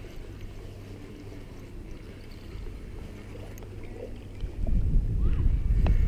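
Spinning reel being cranked close to the microphone as a hooked trout is reeled in: a faint steady low hum that turns into a much louder, rough low noise about four and a half seconds in.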